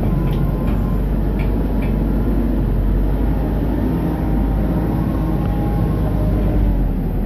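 Engine of a small enclosed-cab work machine running steadily, a low even rumble.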